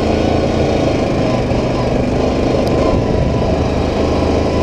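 Single-cylinder ATV engine running steadily at an even cruising pace on a dirt trail.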